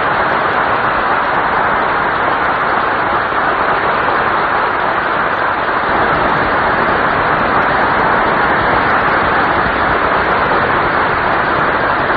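Studio audience applauding steadily at the close of the operetta's first act.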